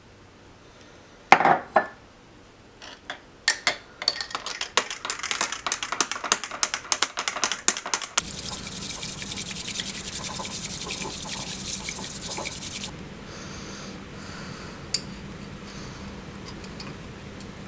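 Crockery and a utensil clinking: a few separate knocks, then about four seconds of quick small strokes against the dish. About eight seconds in it changes abruptly to a steady hiss over a low hum, with a couple of faint clinks.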